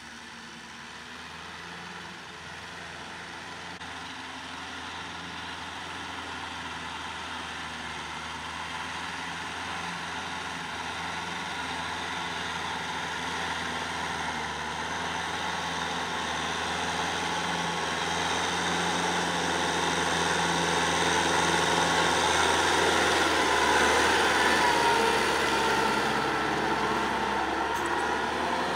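Kubota M6040 tractor's diesel engine running steadily under load as it pulls a rear rotary tiller through the soil. It grows gradually louder as it comes closer and is loudest a few seconds before the end.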